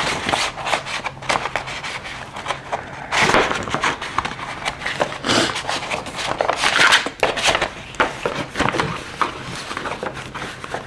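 Paper rustling and crinkling as a greeting card and its envelope are handled, in a run of short irregular strokes with a few louder bursts.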